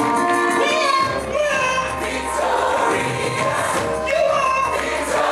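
Live gospel music: a group of singers singing together over a full band of drums, bass, electric guitars and keyboard, with the bass coming in about a second in.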